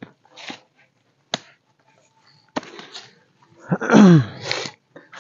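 A few sharp chops of a machete blade striking the ground and undergrowth. About four seconds in, a loud cry sweeping steeply down in pitch, followed by a shorter one.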